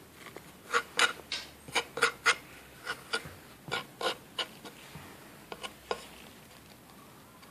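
Short, irregular rasping scratches and scrapes on a wooden cat scratcher during a kitten's play, with a toy rubbed against the wood, dying away about a second before the end.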